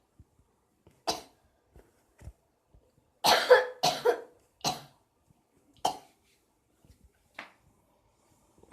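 A person coughing: a series of about seven short coughs, bunched between about three and five seconds in, with single ones before and after.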